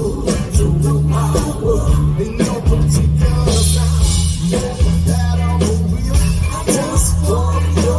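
Upbeat music with a steady beat and a bass line that changes note every second or so.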